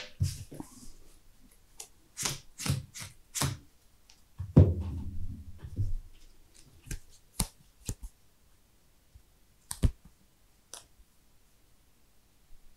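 Sleeved trading cards being picked up, slid and set down on a playmat: a quick string of clicks and taps, a louder thump about four and a half seconds in, then a few scattered taps.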